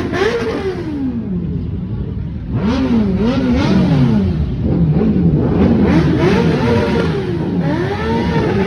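Superbike engine with an aftermarket full-system exhaust revved in repeated quick blips, the pitch rising and falling about twice a second.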